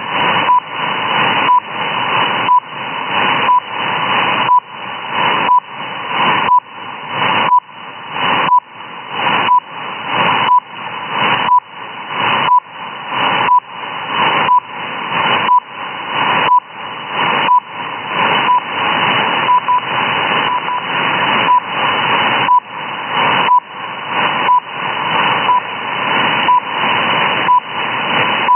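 RWM time-signal transmission received on a shortwave SDR in USB: a short beep near 1 kHz once a second, the station's second pulses, over steady static hiss. The hiss dips at each beep and swells back until the next one.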